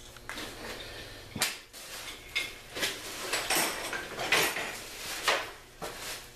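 Irregular knocks and clatters, about half a dozen, of hard objects being handled and set down, as when tools and parts are worked on by hand.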